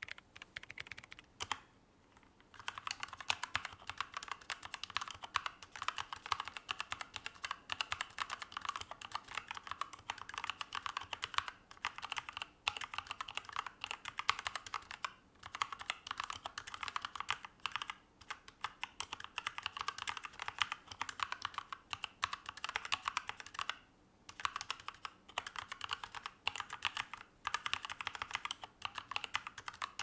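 Typing on a DIERYA DK63 mechanical keyboard with red linear switches: a dense, steady run of keystrokes with a few short pauses.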